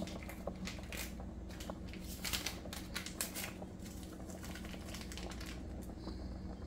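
Faint crinkling and light ticking of a small seasoning packet being opened and shaken out over a pot of rice, in scattered bursts, over a faint steady hum.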